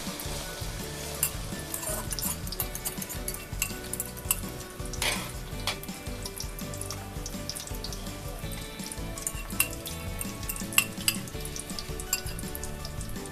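Beaten egg and canned-fish omelette mixture sizzling as it goes into hot oil in a wok, with a fork clicking and scraping against the bowl and the wok as the mixture is pushed out and spread.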